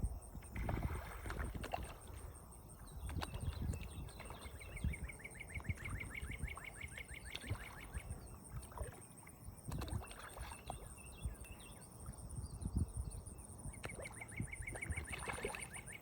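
Outdoor pond ambience: insects chirping in a steady pulsing drone, scattered small splashes and slurps of fish taking feed at the water's surface, and irregular low rumbles of wind on the microphone.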